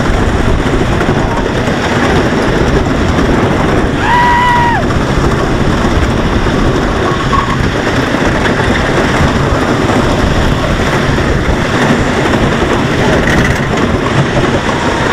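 Wooden roller coaster train running fast along its wooden track: a loud, steady rumble and rattle of the wheels, with wind on the microphone. A brief high-pitched tone sounds about four seconds in.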